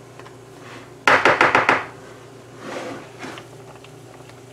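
A quick run of about half a dozen sharp knocks in under a second, a kitchen utensil rattling against the rim of a pot of boiling pasta shells as the shells are poked down into the water. A softer scrape and a single click follow.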